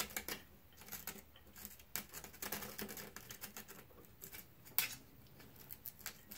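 Metal hand pick scraping and ticking against a bolt head on a Model T's cast-iron housing as it digs out packed dirt so a socket will fit. Faint, irregular small scrapes and clicks, with one sharper click about five seconds in.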